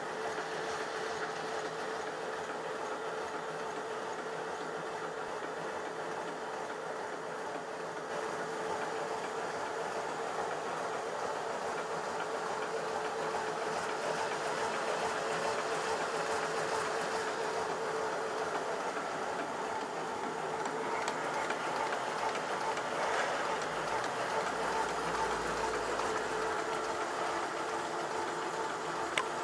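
Roan 9500 plastic bag-making machine running at about 60 per cent of its rated speed: a steady, rapid mechanical clatter over a constant hum.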